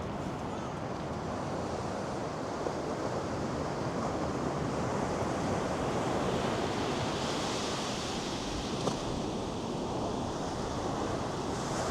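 North Sea surf breaking and washing up a sandy beach in a steady rush, swelling a few seconds in as a wave comes in, with some wind on the microphone.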